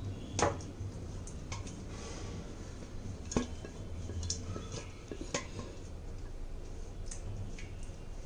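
Serving spoon clinking and scraping against the electric pressure cooker's inner pot and a serving dish as curry is ladled out, with a few sharper knocks, over a steady low hum.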